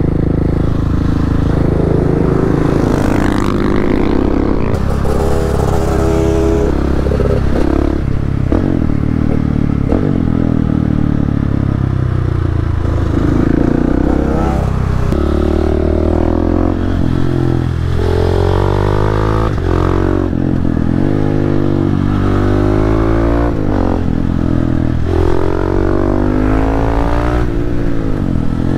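Supermoto motorcycle engines under hard riding, the revs rising and falling again and again through gear changes, with more than one engine heard at once.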